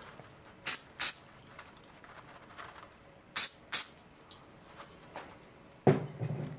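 CA glue accelerator pump-sprayed onto a fresh glue fillet to set it: two quick spritzes, a pause of about two seconds, then two more. Near the end comes a short, lower thump.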